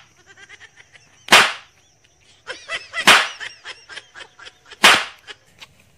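Three sharp smacks, about a second and a half apart, as a green ambarella fruit is whacked against a tree trunk to crack it open.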